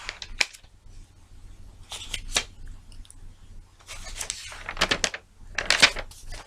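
Paper rustling in several short, scratchy bursts, about six in all, over a faint low hum.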